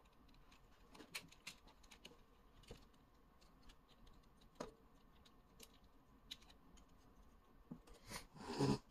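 Faint, scattered small plastic clicks and taps as a Dicelings transforming die toy is pried open and its parts unfolded, with a louder burst of handling noise near the end.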